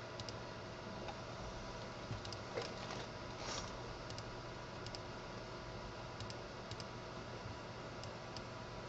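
Scattered light clicks from a computer mouse and keyboard, a few at a time with pauses between, over a steady faint hiss and hum.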